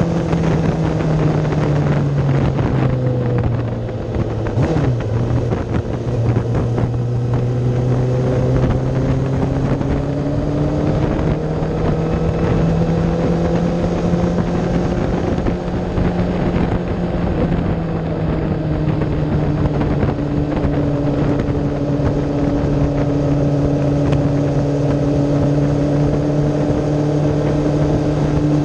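Kawasaki ZX-10RR's inline-four engine at racing speed, heard from on the bike: the engine note drops for a few seconds, then climbs steadily for about ten seconds under acceleration and holds high.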